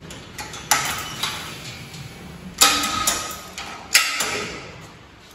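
Metal clanks and clinks from a gym cable machine being set up: the pulley pin and carriage are adjusted and an EZ-curl bar attachment is hooked onto the cable. There are about four sharp clanks, the loudest about two and a half and four seconds in, and one of them rings briefly.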